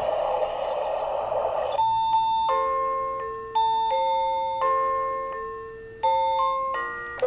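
Portable owl-shaped baby sound machine playing its sounds. A steady hiss of soothing noise cuts off about two seconds in and is followed by a slow chiming lullaby melody, one note about every second, each ringing and fading.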